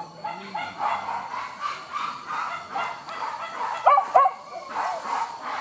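Hunting dogs barking and yelping over and over, several calls a second, with the loudest yelps about four seconds in.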